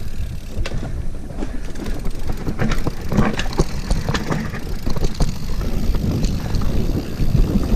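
Wind rushing over the camera microphone and mountain-bike tyres rolling fast over a dirt trail, with scattered clicks and rattles from the bike over bumps.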